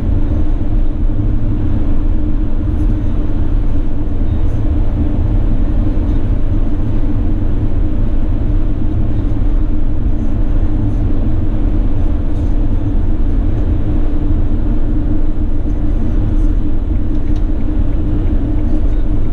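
Steady in-cab drone of a Mercedes-Benz Sprinter 519 CDI minibus cruising at motorway speed: its V6 diesel engine running with tyre and wind noise. It is a deep rumble with a steady low hum on top.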